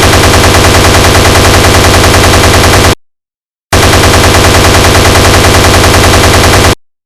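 Browning M2 .50-calibre heavy machine gun firing two sustained bursts of about three seconds each, at a rapid, even rate, with a short dead-silent gap between them and another silence near the end.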